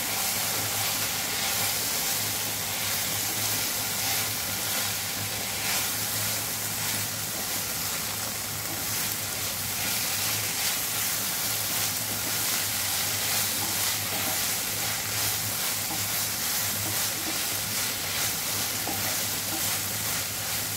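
Onion, capsicum, carrot and shredded chicken sizzling in oil in a nonstick pan while a wooden spatula stirs and tosses them: a steady frying hiss with soft repeated scraping strokes, over a steady low hum.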